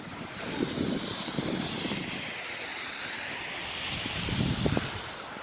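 Strong blizzard wind blowing in gusts, a steady rushing hiss that swells and wavers, with low irregular rumbling from the wind buffeting.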